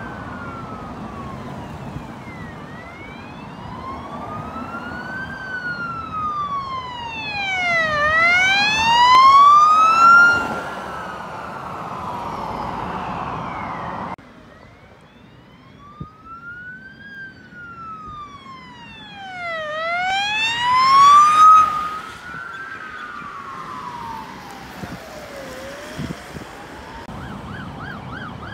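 Emergency vehicle sirens sounding a slow wail that rises and falls in pitch, swelling twice as they pass by. The sound drops off abruptly about halfway through. A fast warbling siren starts near the end, over the tyre noise of passing traffic.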